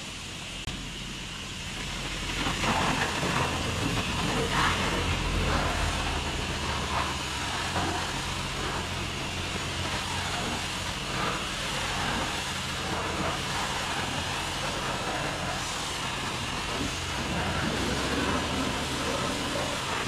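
Self-serve car wash high-pressure wand spraying a rinse onto a truck's body: a steady hissing spray that gets louder about two seconds in, with a low hum underneath.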